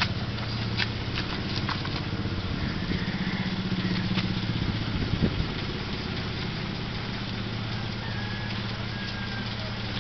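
A vehicle engine idling steadily, with a few light clicks over it.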